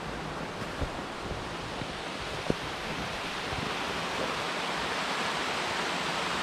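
Steady rushing of water from the Giessbach falls running between snow-covered rocks, growing slightly louder, with a couple of faint ticks.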